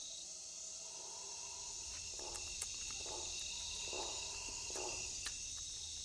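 Night insect chorus: a steady, high-pitched layered trilling, with a few faint softer sounds about a second apart near the middle.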